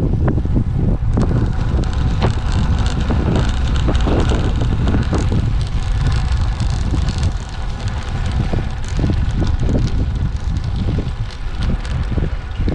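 Wind buffeting the microphone of a camera on a moving road bike: a loud, low rumble with crackles, easing slightly about seven and a half seconds in.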